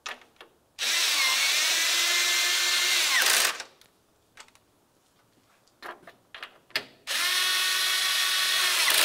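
Cordless drill driving 10 mm bolts into the grille's upper trim panel, running twice with a steady whine: about two and a half seconds, then again for about two seconds near the end. The first run winds down in pitch as it stops.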